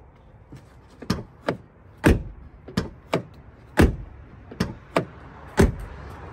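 Ford F-350 crew-cab doors opened and shut by hand three times, each heavy, solid shut coming about every 1.7 seconds after lighter clicks of the handle and latch. The doors are lined with Kilmat sound-deadening mat, so they close with a dull thud rather than a tinny clang.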